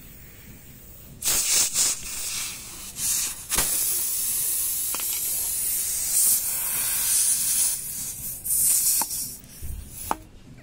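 Air hissing out of the puncture in a tubeless tyre, starting about a second in and coming and going in uneven surges while the plug-insertion needle is worked into the hole, with a few sharp clicks. The tyre is losing its pressure through the opened puncture.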